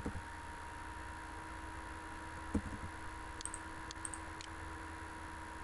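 A computer mouse clicking a few times: a soft knock, then several light ticks a second or so later, over a faint steady electrical hum.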